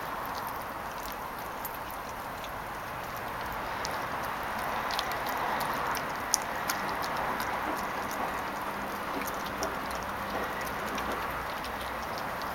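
Yellow Labrador puppy gnawing a raw chicken leg: scattered small crunches and clicks of teeth on meat and bone, with one sharper crack about six seconds in, over a steady background hiss.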